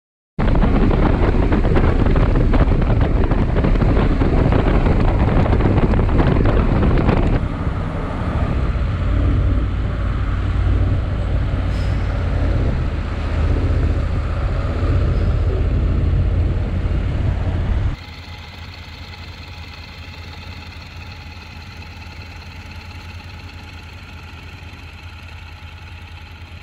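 Riding a Honda NC750X motorcycle: heavy wind noise over the bike for the first several seconds, then the engine running at lower speed among town traffic. About two-thirds of the way in, it cuts to a much quieter steady hum with a few held tones.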